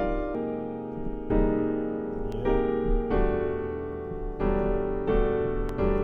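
Piano playing a series of rich sustained chords, a new chord struck about every second: inversions of a minor 11 voicing with the 9th and 11th placed on top.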